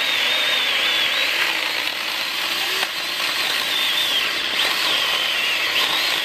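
Mini electric chainsaw running as it cuts through a thick branch. Its high motor whine wavers and dips in pitch as the chain is loaded by the wood.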